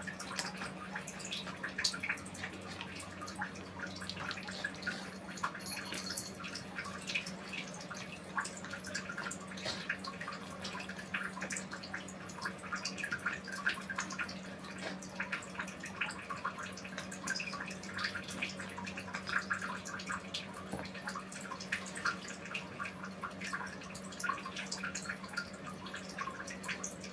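Kittens eating from bowls: a rapid, continuous run of small wet licking and chewing clicks, over a steady low hum.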